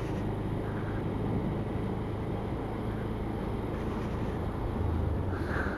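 Motorcycle ridden at a steady speed: a low engine hum under wind rushing over the microphone, with no change in pace.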